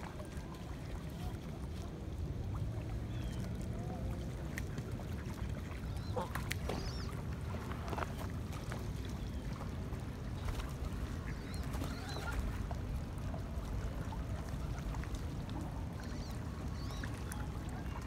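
A steady low rumble of wind and water, with scattered short calls from a flock of Canada geese and ducks at the water's edge, and a few faint clicks.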